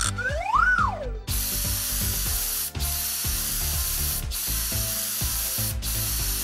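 Cartoon pressure-washer sound effect: a short rising-then-falling whistle, then a steady hiss of water spray broken by three brief gaps, over background music with a steady bass beat.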